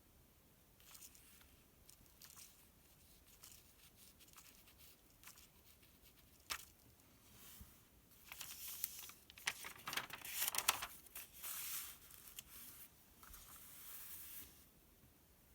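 Paper pages of a sales circular rustling and crinkling as a page is turned, loudest from about eight to twelve seconds in. Before that come soft scattered touches and ticks on the paper.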